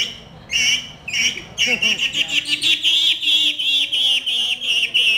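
A person imitating bird song by mouth-whistling. A few separate chirps come first, then, under two seconds in, a fast warbling run of short repeated notes.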